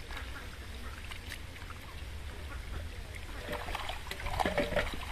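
Many fish thrashing and splashing at the surface of shallow pond water, with scattered splashes that grow louder and busier in the last second and a half. A steady low rumble runs underneath.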